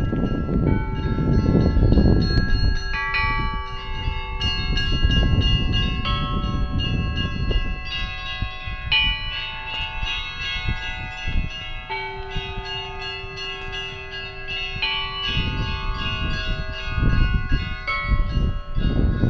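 Russian church bells ringing in a peal: several bells of different pitches struck over and over in an overlapping pattern, their tones ringing on, with a deeper bell sounding now and then. A low rumble sits under the bells at the start and again near the end.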